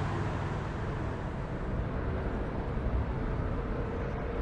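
Steady low rumble of heavy machinery running, with a faint steady hum joining about halfway through.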